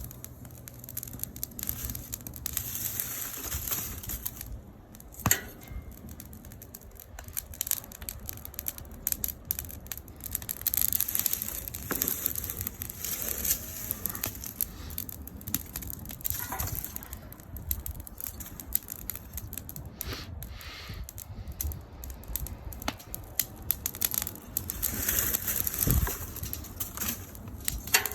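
Wood fire crackling, with dense irregular pops and snaps over a steady hiss; a sharper crack about five seconds in.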